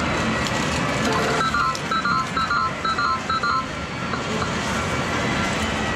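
Steady game-centre din, with a quick run of short electronic beeps from a Sigma video poker medal machine starting over a second in and lasting about two seconds, as credits go in and a new hand is dealt.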